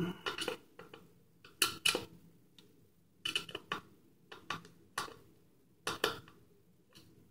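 An irregular series of light clicks and clinks from small hard objects being handled on a hard surface, some ringing briefly.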